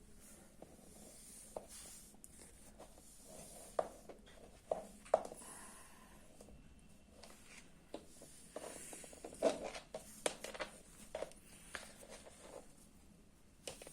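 Hands working on a helmet: quiet rubbing and scraping with scattered light clicks and knocks, the loudest knock about nine and a half seconds in.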